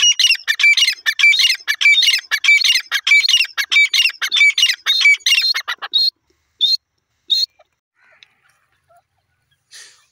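Gray francolin calling: a loud, rapid run of repeated high-pitched notes for about six seconds, then three single notes spaced apart before it falls silent.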